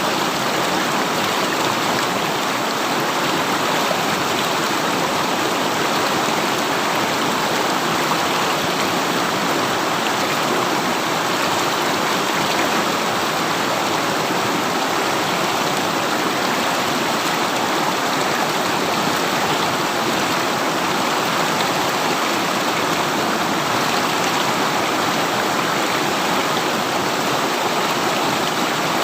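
River water running and rushing over rocks, a steady loud wash with no pauses.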